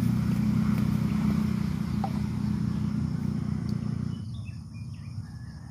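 A low, steady engine drone, fading away after about four seconds, with a few faint bird chirps.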